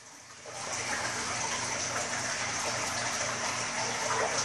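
Water rushing and splashing steadily in a half-full reef aquarium, driven by its circulation outlets, over a faint low hum. It swells up within the first second, then holds steady.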